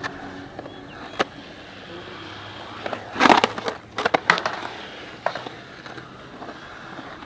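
Skateboard rolling on a concrete bowl, with sharp clacks of the board and a loud scrape about three seconds in, followed by more clacks.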